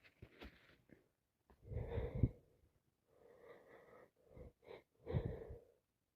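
A congested nose being blown wetly into a tissue: two strong blows about three seconds apart, with quieter snorts and sniffs between. The nose is full of mucus from a sinus infection.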